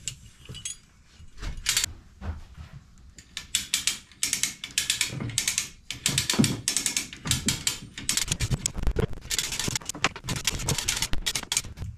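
Hand-ratcheting come-along being cranked by its lever, the pawl clicking in rapid runs, one with each stroke. It is hoisting a jet ski's engine up out of the hull.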